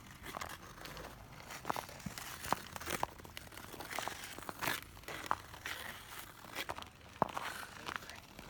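Footsteps crunching on a crisp surface, with irregular sharp crackles and snaps.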